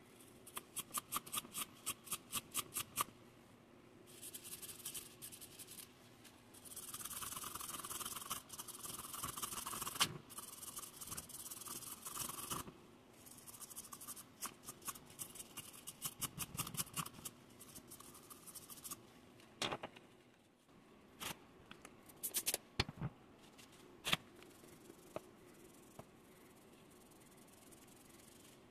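Hand wire brush scrubbing a small aluminum part: quick back-and-forth scratching strokes, about five a second at first, then a long stretch of fast, steady scrubbing, then a few separate scrapes and sharp taps.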